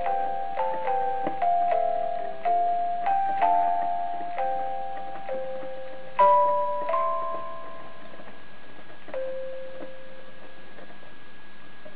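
Wilesco toy barrel organ, hand-cranked, playing a tune from its punched note strips: a melody of pitched notes that each start sharply and fade. A louder note sounds about six seconds in, the tune thins out and a last note comes about nine seconds in, leaving only a faint steady tone.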